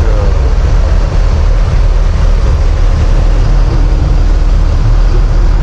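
Mercedes-Benz OH 1626 coach's rear-mounted diesel engine running as the bus moves slowly off: a loud, steady low rumble.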